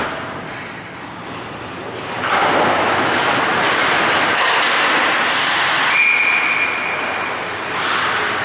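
Ice hockey play: skate blades scraping and carving the ice, a noisy hiss that swells about two seconds in and carries on as players skate up ice. A short, steady high tone sounds about six seconds in.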